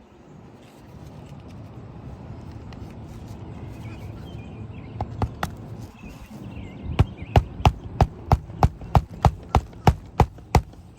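Hammer driving roofing nails into asphalt shingles: two light taps around the middle, then about a dozen sharp, evenly spaced strikes, roughly three a second, near the end.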